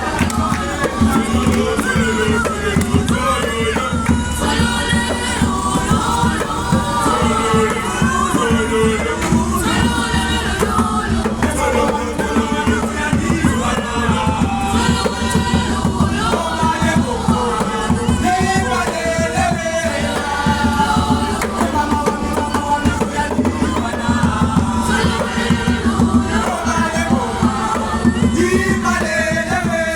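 A group of children singing together in the street, several voices at once, over a steady rhythmic beat.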